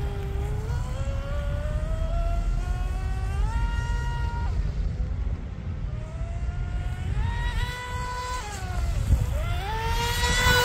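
Electric motor and propeller of a lipo-powered RC mono hull speedboat at full run: a whine that climbs in pitch as the throttle opens, drops away about four and a half seconds in, climbs again, falls back, and rises once more near the end.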